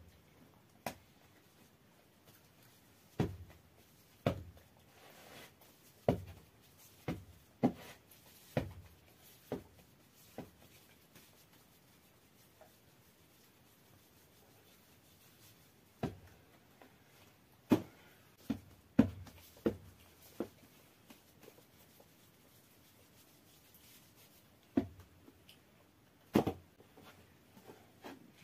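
Dull thuds of soft bread dough being slapped and pressed onto a floured wooden board as dough balls are shaped by hand, coming in irregular clusters with soft rubbing of hands on flour between them.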